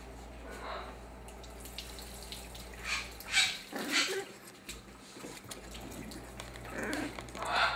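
Baby shamrock macaw giving a series of short, raspy squawks, several separate calls with the loudest a little past the middle, over a steady low hum.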